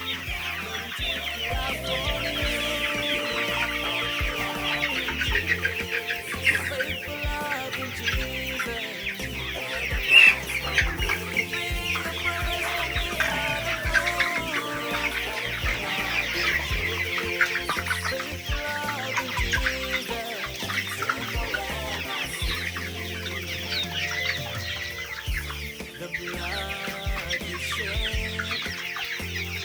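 A flock of chickens calling continuously, a dense chorus of cheeps and clucks with one louder call about ten seconds in. Background music plays underneath.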